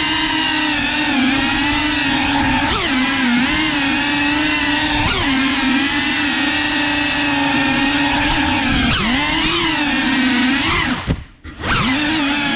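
Cinewhoop FPV drone's ducted propellers and motors buzzing, the pitch dipping and rising as the throttle changes. Near the end the buzz cuts out for about half a second as the throttle is chopped, then spins back up.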